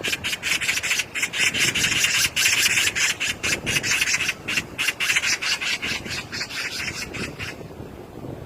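Magpie chattering: a loud, harsh, rasping rattle of rapid notes that breaks off about seven and a half seconds in.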